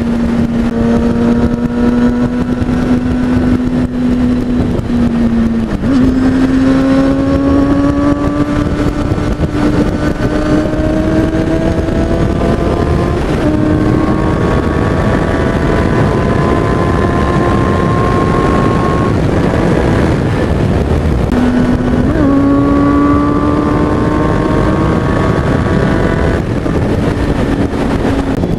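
Sport motorcycle engine running at freeway speed over a constant rush of wind noise, its note slowly climbing in pitch. The pitch dips and then jumps up quickly about 6 seconds in and again about 22 seconds in.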